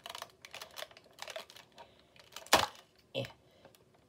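Clicks and crackles of plastic toy packaging being handled and opened, with two louder snaps about two and a half and three seconds in.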